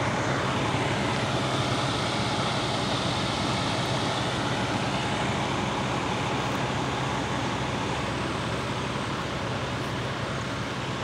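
Diesel engines of fire engines idling steadily, a constant low hum under a hiss that eases off slightly towards the end.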